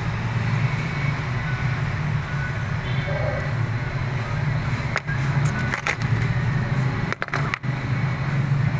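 Steady low mechanical rumble with a hum, with brief dips about five and seven seconds in.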